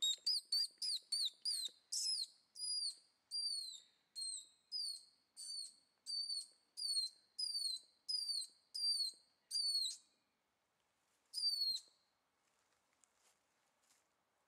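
A series of about twenty high, whistle-like calls, each a short note that bends and drops in pitch. They come quickly at first, then space out to about one every half second, stop about ten seconds in, and one last call follows a second and a half later.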